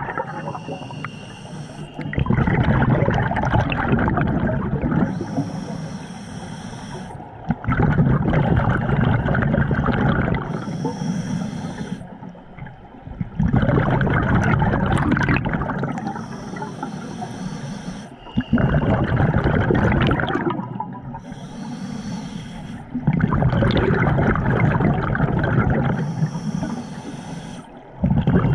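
Scuba diver breathing through a regulator underwater: each breath is a hissing inhale through the regulator followed by a louder rush of exhaled bubbles, about five breaths, one every five or six seconds.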